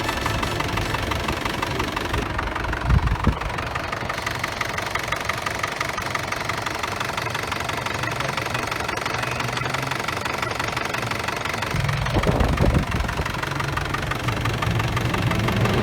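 Isuzu D-Max pickup engine idling steadily, with a low thump about three seconds in and another around twelve seconds.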